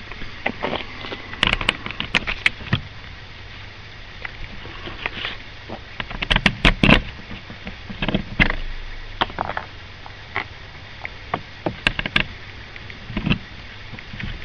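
Irregular knocks, taps and clicks of an old wood-framed trunk and its metal fittings being handled, coming in small clusters with short gaps between, over a low steady hum.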